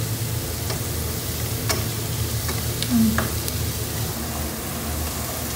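Onion-and-spice masala sizzling in a non-stick pot on a gas burner while a wooden spatula stirs it, scraping and tapping the pan several times. A steady low hum runs underneath.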